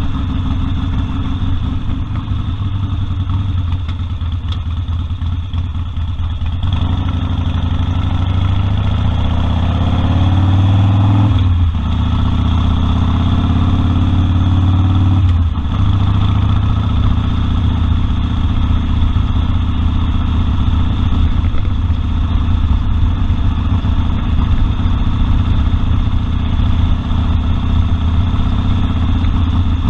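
Harley-Davidson Sportster 1200's air-cooled V-twin engine running on the move. Partway in, the revs climb, drop suddenly at a gear change, climb again and drop at a second shift, then settle into a steady cruise.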